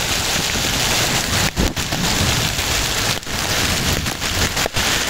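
Heavy rain mixed with hailstones about two centimetres across pelting the asphalt road, a loud dense hiss that drops out briefly a few times.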